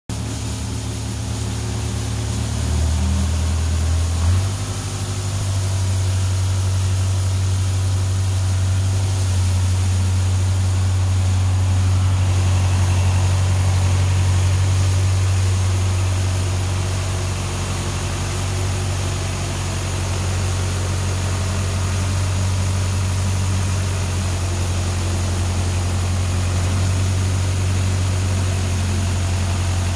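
Tractor engine running steadily, driving a three-point rotary broom; a low steady hum whose note shifts, with a brief bump in loudness, about four seconds in.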